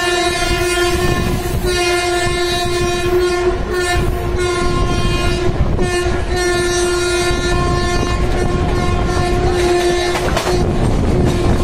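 Indian Railways locomotive horn sounding in long, loud blasts broken by short gaps, stopping about ten seconds in. Under it runs the steady rumble and clatter of a train running fast on the tracks.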